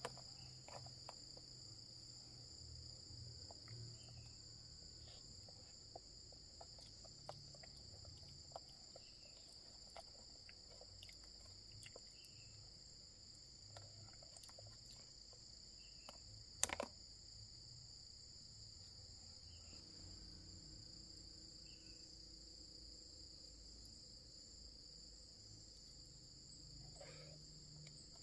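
Insects chirring steadily at two high pitches, with faint scattered light clicks of a small spoon in a plastic cup and one sharper click about two-thirds of the way through.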